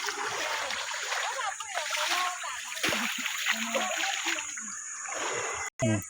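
Water splashing and sloshing in irregular bursts, with voices in the background.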